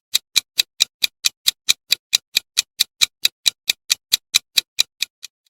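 Quiz countdown-timer sound effect: a steady, clock-like ticking at about four to five ticks a second, stopping just before the end.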